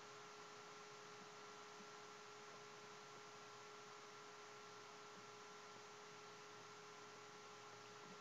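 Near silence: a faint, steady electrical hum of a few unchanging tones over a light hiss.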